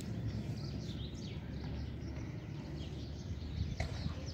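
Faint, short bird chirps over a steady low outdoor rumble, with one sharp click a little before the end.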